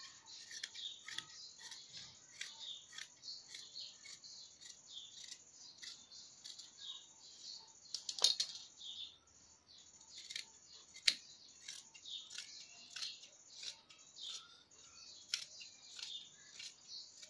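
Tailoring scissors cutting through folded cotton fabric in a string of short, repeated snips, with a couple of louder clicks about halfway through.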